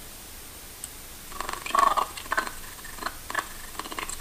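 Playback of a noise-reduced voice recording from the audio editor: short, irregular bursts of sound starting about a second and a half in, over a steady low hiss.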